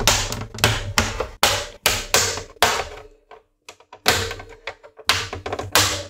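A run of sharp, irregular plastic clicks and knocks, with a pause of about a second near the middle. They come from an Xbox One S bottom cover's snap-fit clips being worked loose with a plastic pry tool.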